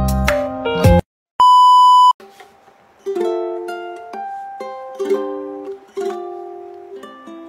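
Edited-in background music: a busy tune cuts off about a second in, a loud steady beep sounds for under a second, and light plucked-string music, ukulele-like, starts about three seconds in.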